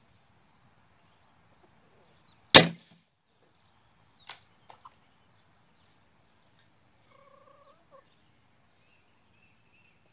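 A single sharp crack of a shot from a Gamo Black Bull IGT Mach 1 .177 gas-ram air rifle, followed a couple of seconds later by a few light clicks. A faint, short two-tone call comes near the end.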